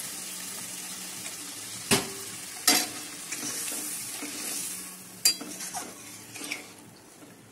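Water poured into hot, oil-fried spice paste in a kadai, sizzling, the hiss dying down over the seconds as the pan cools. A steel spatula stirs through it and knocks sharply against the pan three times.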